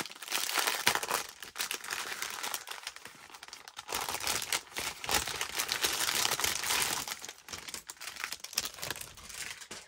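Clear plastic packaging crinkling as it is handled and opened, loudest about a second in and again from about four to seven seconds.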